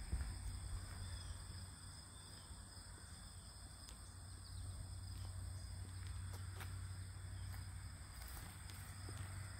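Faint outdoor ambience: a steady, high-pitched chorus of insects such as crickets over a low rumble of wind on the microphone, with a few light clicks.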